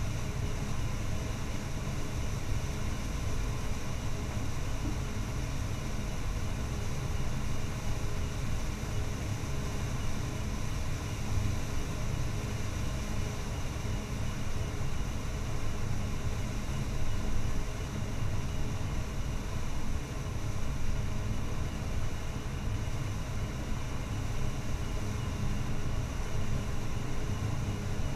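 Claas Jaguar 970 self-propelled forage harvester running under load while chopping standing corn for silage: a steady heavy low rumble of engine and machinery with a faint steady high whine above it.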